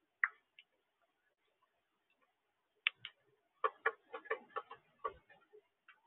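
Cardinals pecking at cracked corn in a platform feeder tray: sharp, irregular clicks and taps. A few come scattered at first, then a quick run of them from about halfway through.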